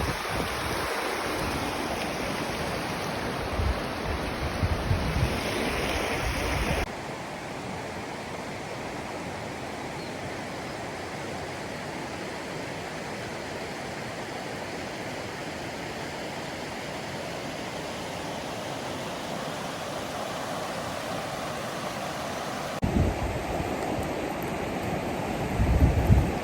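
River rapids rushing steadily, with wind gusting on the microphone in the first several seconds and again near the end. The rush drops abruptly about seven seconds in and comes back louder near the end.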